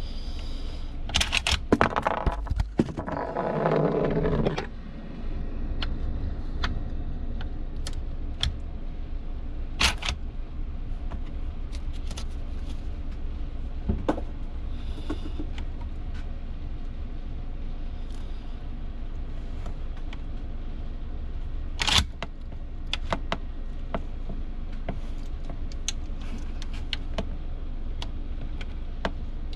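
Metallic clicks and clacks of an M1 Garand's action being worked by hand as the rifle is unloaded, with a burst of clacks and a rattle in the first few seconds, then scattered single clicks and one sharper clack about two-thirds of the way in, over a steady low hum.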